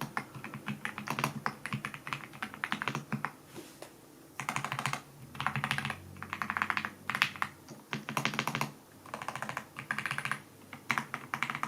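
Typing on a Dareu EK87 Pro mechanical keyboard with pre-lubed linear switches. The keystrokes come in fast bursts, broken by short pauses.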